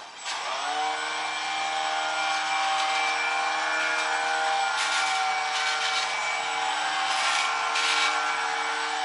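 Ultra micro RC jet's small electric motor and propeller running at a steady whine as the model taxis, spinning up just after the start. A brief hiss joins in a few times.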